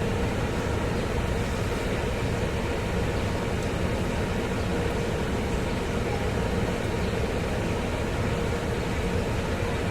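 Mercedes-Benz ML320 engine idling with a steady, even sound.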